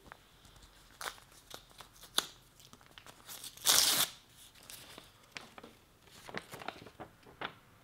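Paper envelope being opened by hand: crinkling and rustling, with one loud rip about three and a half seconds in as it is torn open, then more crinkles and rustles of the paper.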